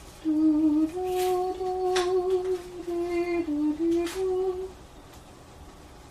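A person humming a wordless tune, the pitch stepping up and down, stopping about three-quarters of the way through. A few light clicks come over it.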